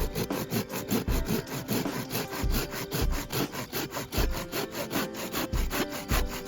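Japanese hand saw (Samurai Kishi 210 mm) cutting through a piece of firewood with rapid, steady back-and-forth strokes.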